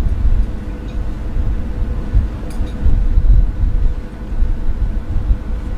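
Wind buffeting the microphone on the deck of a moving boat, a low, gusting rumble over a faint steady machine hum from the boat's engine. A couple of faint clinks come about two and a half seconds in.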